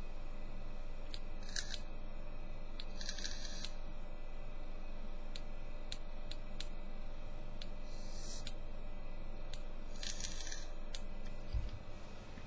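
Homemade DNA20 vape mod's atomizer coil firing in four short hissing bursts of about half a second each, with scattered sharp clicks between them. The mod keeps cutting in and out on its own, which the builder can't yet explain.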